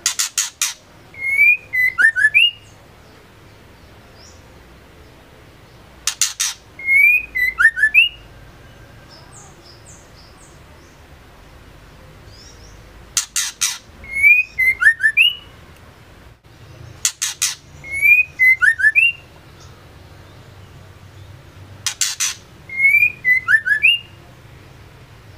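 Female white-rumped shama calling: five times, one short phrase of a few sharp harsh notes followed by quick whistled notes that rise and fall, repeated about every five seconds.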